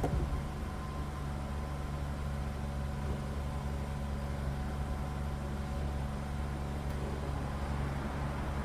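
MG3 car's engine idling steadily, switched on to power the heated rear window for a test.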